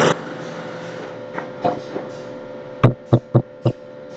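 Steady background hum with a constant tone, broken about three seconds in by four sharp clicks in quick succession.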